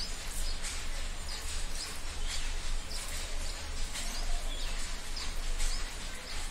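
Small birds chirping: short, high chirps, many falling in pitch, come irregularly a few times a second over a steady low hum.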